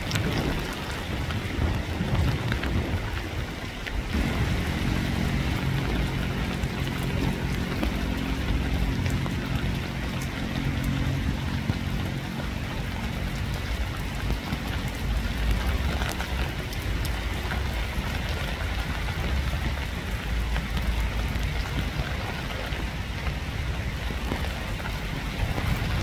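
Steady rain falling. About four seconds in, a low droning hum with a pitch joins it and fades away over the next ten seconds or so.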